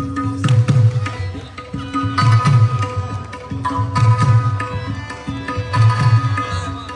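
Pashto attan dance music: a drum beats a heavy repeating pattern that comes round about every second and three quarters, under a steady melody instrument.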